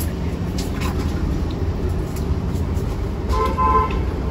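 Steady low hum of the running humidifier machinery, with a short horn toot about three and a half seconds in.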